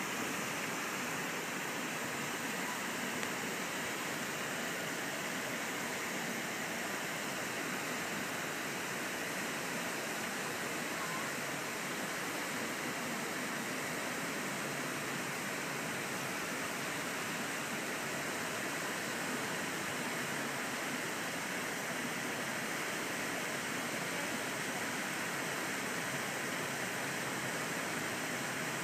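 Water pouring over a low river dam's spillway: a steady, even rush with no let-up.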